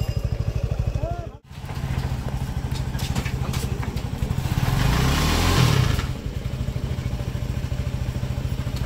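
Sport motorcycle engine idling with an even, steady pulse, revved up for a couple of seconds about five seconds in as the bike is eased onto the bamboo jetty, then settling back to idle. The sound drops out for an instant near the start.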